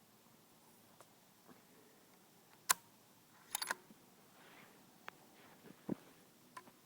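Browning X-Bolt bolt-action rifle being handled: a few sharp metallic clicks, a loud one about two and a half seconds in and a quick cluster of them a second later, then fainter single clicks.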